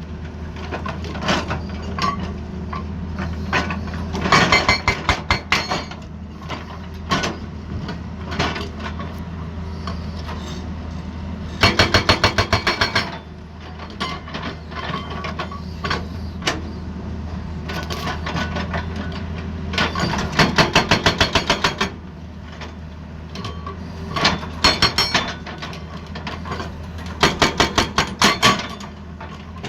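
Hydraulic breaker hammer on an excavator pounding in five bursts of rapid blows, about ten a second, each burst lasting a second or two, over the steady running of the excavator's engine.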